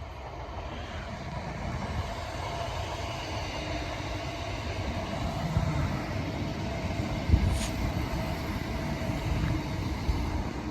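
Greater Anglia Class 379 electric multiple unit passing: steady noise of wheels running on the rails, with a few heavier low thumps in the second half.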